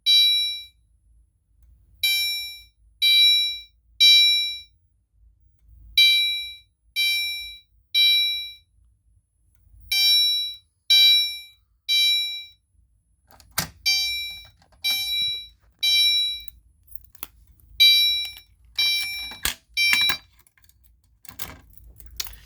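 Fire alarm horn strobe set to chime, sounding temporal code 3: groups of three short chime tones about a second apart, with a new group every four seconds. From about halfway through, clicks and knocks sound along with the chimes.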